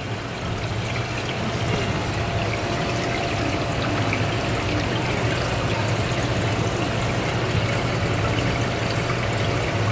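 Steady running water, an even flow with no breaks, over a constant low hum.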